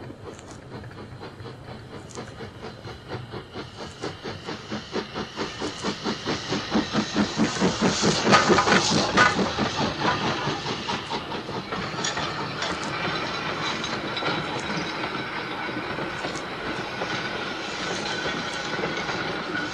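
Steam locomotive passing, heard from an old vinyl record: its exhaust beats grow louder to a peak about halfway through, then give way to the steady running noise and hiss of the train. Faint record clicks are heard now and then.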